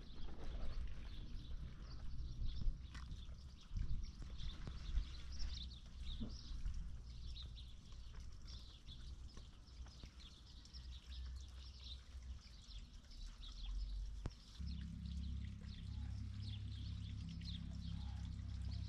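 Outdoor ambience of many short, high chirps repeating throughout, with a few scattered knocks and low rumble. A steady low drone starts about three-quarters of the way through.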